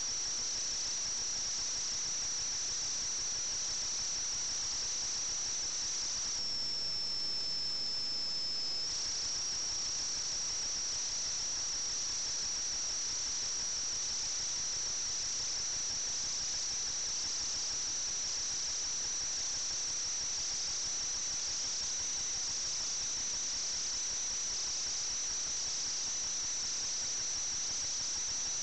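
A steady high-pitched whine over a constant hiss. About six seconds in, the whine dips slightly in pitch for a couple of seconds, then returns.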